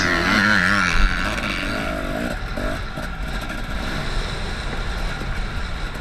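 Dirt bike engine running on an on-board camera, its pitch rising and falling as the throttle is opened and closed over the jumps, then settling into a quieter, rougher running after about two seconds.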